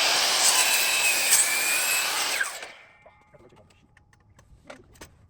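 Miter saw cutting through a thick 6x6 wooden post, the motor whining under load; it is switched off about two and a half seconds in and the blade winds down, followed by a few faint clicks.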